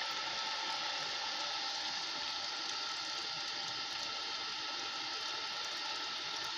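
Electric water pump running steadily, with water rushing through it; it is delivering little water at weak pressure.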